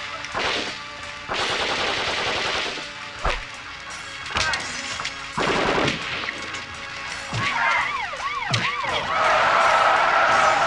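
Cinema ambience sound effect: a film soundtrack playing loud over theatre speakers, a run of noisy blasts and sharp hits with a few swooping pitch sweeps, then a steady held tone from about nine seconds in.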